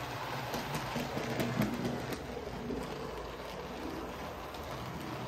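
Hornby model Bulleid Pacific locomotive running along the track with its coaches: a steady motor-and-wheel rumble, with several light clicks in the first couple of seconds as the wheels pass over rail joints.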